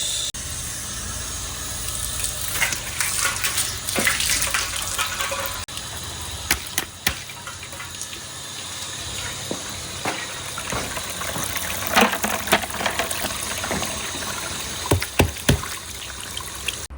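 Water running and gushing through a water-powered marble run, with marbles clicking and knocking against the track at irregular moments, in clusters about a third of the way in, near the middle and near the end.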